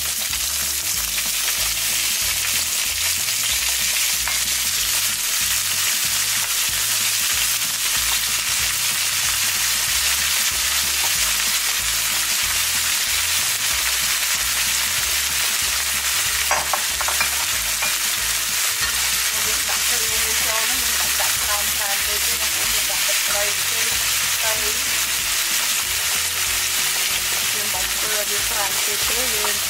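Small shrimp and garlic sizzling steadily in hot oil in a frying pan as they are stirred with a metal spatula.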